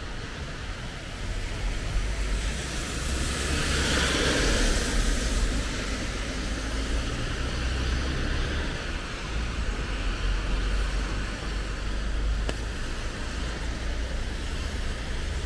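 City traffic on rain-wet streets: a steady low rumble, and a vehicle passing with a hiss of tyres on wet road that swells a few seconds in and fades away.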